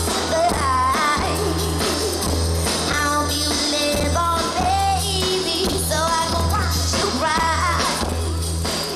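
Live band playing a pop-soul song with a woman singing the lead, her voice gliding and wavering over a heavy bass that pulses in a steady beat. It comes through the concert PA, heard from the crowd.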